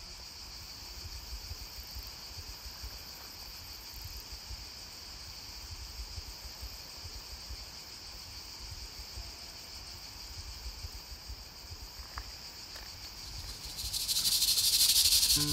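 Steady, high continuous chirring of insects in an outdoor summer ambience, over a faint uneven low rumble. Near the end a loud rushing, hissing noise swells up and is the loudest sound.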